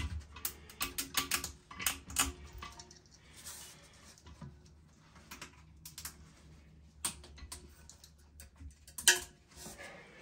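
Small plastic clicks and taps, a quick run of them in the first couple of seconds and then a few single ones: plastic washers and fittings being pushed up onto the tank-to-bowl bolts of a toilet.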